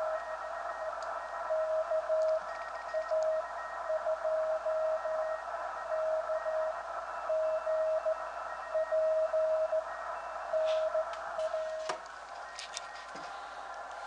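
Morse code signal heard on a Yaesu FT-891 transceiver on the 80-meter band: a single steady mid-pitched tone keyed in dots and dashes over a constant hiss of band noise, a station calling CQ. The keying stops about 12 seconds in, the hiss drops, and a few faint clicks follow.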